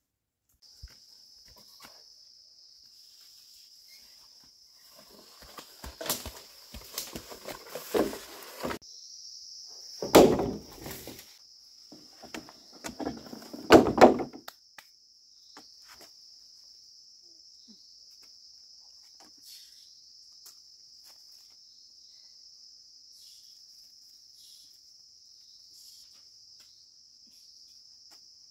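Crickets chirring in a steady, high-pitched drone. From about 5 to 14 seconds there is a stretch of rustling and knocking from handling, with two loud thumps near 10 and 14 seconds.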